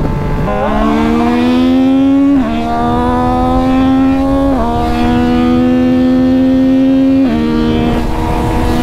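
Yamaha MT-09's three-cylinder engine accelerating hard through the gears, the pitch climbing steadily in each gear and dropping sharply at three upshifts, about two, four and a half and seven seconds in, with wind rush over it.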